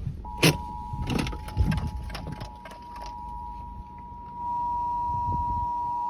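Emergency Alert System attention signal over a car radio: the steady two-tone alert (853 and 960 Hz together) comes in faintly, then gets much louder about four seconds in. A few sharp knocks sound in the first two seconds.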